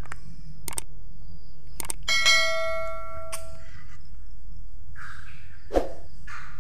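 Subscribe-button animation sound effect: sharp mouse clicks, then a bright bell ding about two seconds in that rings for about a second and a half. A single knock follows near the end, over a steady low hum.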